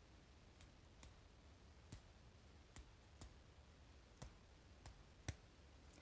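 About eight faint, sharp metal clicks at irregular intervals: a thin steel tool tapping and prying inside a Kaba Ace dimple lock's cylinder housing to work the small driver pins out of their chambers.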